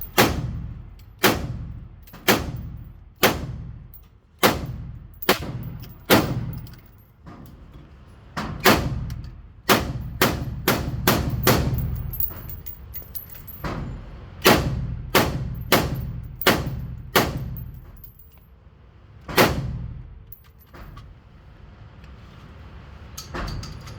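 Gunfire on an indoor shooting range: about twenty single shots in uneven strings, most about a second apart, each with a short echoing tail. The shots stop a few seconds before the end.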